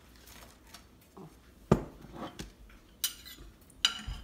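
Ceramic plates and dishes handled on a stone counter: a plate is set down with a sharp knock about two seconds in, then a spoon and serving dishes clink against the plate several times, ringing briefly near the end.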